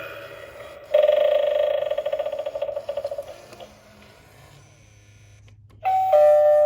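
Gemmy animated eyeball doorbell toy sounding through its small speaker: a pulsing electronic tone of one pitch that lasts about two seconds and then fades. Near the end it starts a two-note ding-dong chime, high then low.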